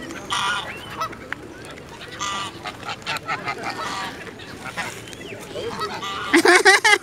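Greylag geese honking: a few short calls in the first half, among light scattered clicks. A person's voice comes in loudly near the end.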